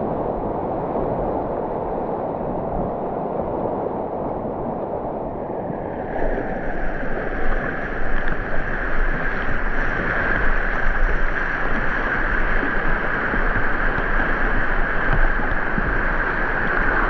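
Rushing whitewater of a river rapid, a steady wash of water noise. About six seconds in it becomes brighter and a little louder.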